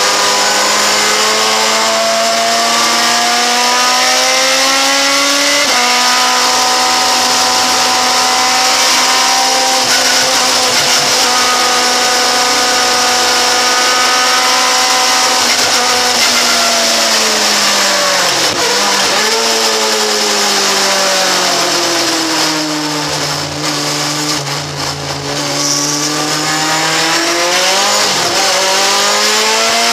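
Onboard sound of a 2-litre sports sedan race car's engine at racing speed. The revs climb, drop sharply about six seconds in as it shifts up, and hold steady. They fall away with quick blips around eighteen seconds, stay low for a few seconds, then build again after another short blip near the end.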